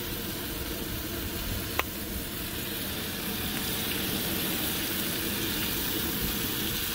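Ground chuck patties frying in a pan on a Coleman propane camp stove: a steady sizzling hiss. One sharp click comes about two seconds in.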